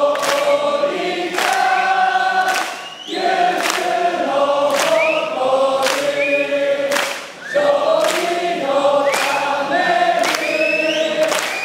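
A large crowd of football supporters singing a chant in unison, punctuated by sharp claps. The singing breaks off briefly twice, about three and seven seconds in.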